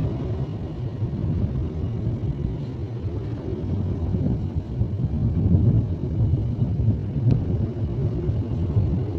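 KAI CC201 diesel-electric locomotive pulling away on departure, its engine under load giving a steady deep rumble.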